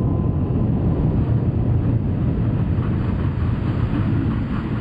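Power hammer press machinery running with a steady low rumble, with a few faint clicks in the second half.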